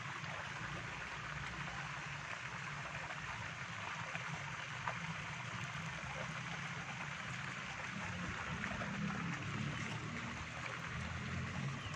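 Steady hiss like running water, with a faint low murmur underneath and one or two faint clicks.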